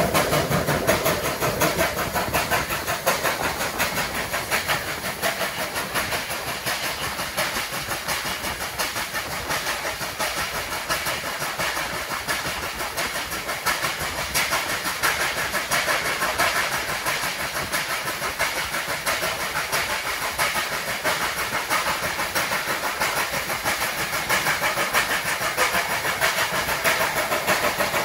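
Train running at speed: a steady, fast run of beats over a continuous hiss.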